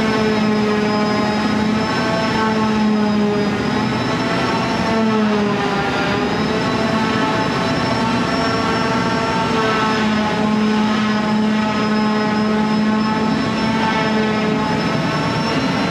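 An electric power tool's motor running steadily with a pitched whine, its pitch sagging briefly and recovering about five seconds in as it takes load.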